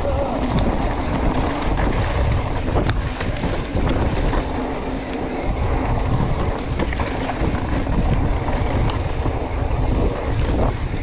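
Wind buffeting the camera microphone along with tyres rumbling over a dry dirt trail as a hardtail mountain bike rides downhill, with a few sharp clicks and rattles from the bike.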